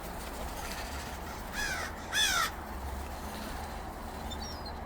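A large bird gives two short, harsh calls about half a second apart, each falling in pitch; the second is louder.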